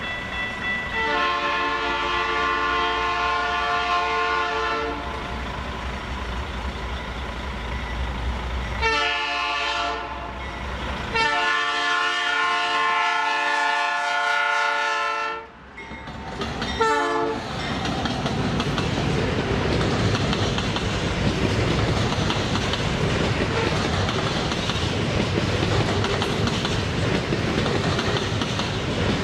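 Freight locomotive's multi-note horn sounding four blasts: long, short, long, then a very brief one. After the blasts the train rolls past with a steady clatter of wheels over the rails.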